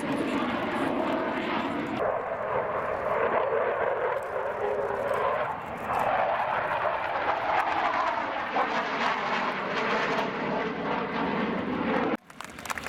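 Jet noise from a Sukhoi Su-27's twin AL-31F turbofan engines on a slow pass at low power, a steady roar and hiss that shifts in tone about two and six seconds in. The sound breaks off abruptly just before the end.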